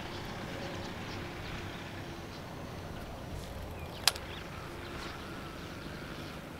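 Steady outdoor background noise on a grassy bank, with faint high chirps of insects or birds, and a single sharp click about four seconds in.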